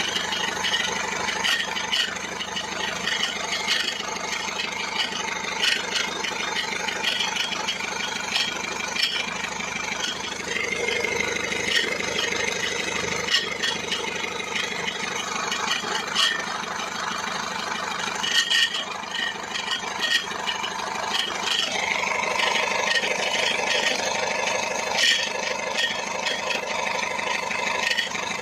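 Mercedes-Benz Sprinter 2.2 diesel (OM611) engine running near idle with its gearbox removed, with sharp irregular knocks every few seconds over the steady run. The mechanic suspects the knock comes from the flywheel.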